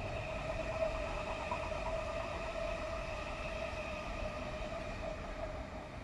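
A steady mechanical hum with a constant pitch over a low rumble, easing off slightly near the end.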